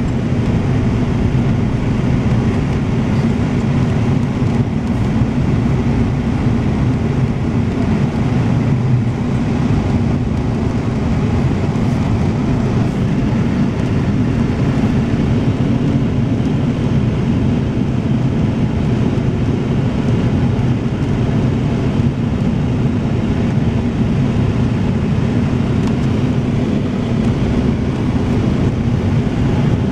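Steady low rumble of a vehicle on the move: engine and road noise at an even level.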